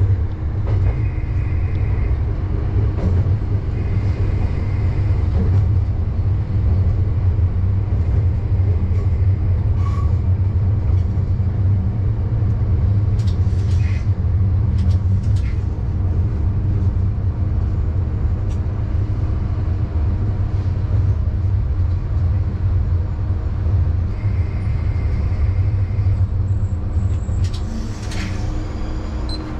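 Diesel railcar of the Hitachinaka Seaside Railway running along the line, heard from the driver's cab: a steady low drone of engine and wheels on the rails, with a few sharp clicks from the track about halfway through and near the end.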